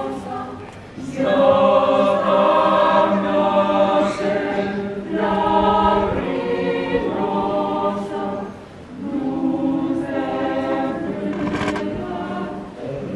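A choir singing a slow hymn in long held notes, pausing briefly about a second in and again near nine seconds.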